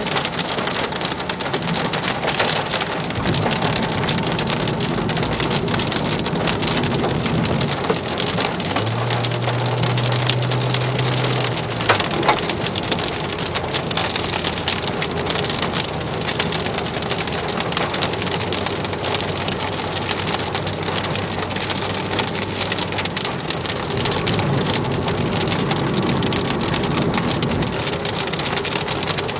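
Heavy rain and hail pelting a car's roof and windshield: a dense, steady patter of countless small hits.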